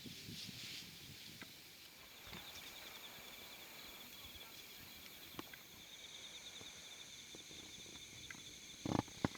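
Autumn night insects such as crickets trilling steadily in several high pitches, one with a fine rapid pulse, with another joining about halfway through. A few faint clicks and a short, louder thud near the end.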